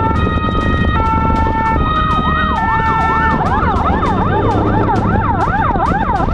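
Police siren alternating between two tones, then switching about three and a half seconds in to a fast rising-and-falling yelp, about two sweeps a second, over a low steady rumble.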